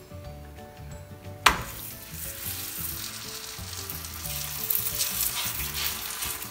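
Raw parotta dough laid onto a hot oiled skillet about a second and a half in, sizzling at once. The sizzling then carries on steadily while hands press the dough flat against the pan.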